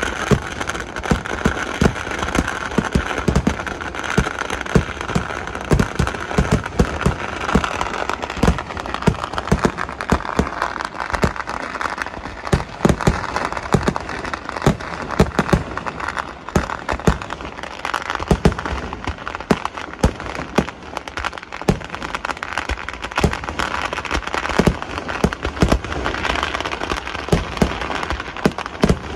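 Kerala temple-festival fireworks (vedikettu) going off in an unbroken barrage: sharp bangs several times a second over a constant crackle.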